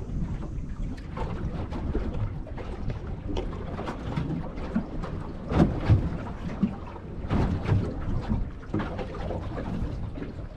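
Wind buffeting the microphone over a small boat on open water, with water lapping at the hull; an uneven rumble with louder gusts about halfway through.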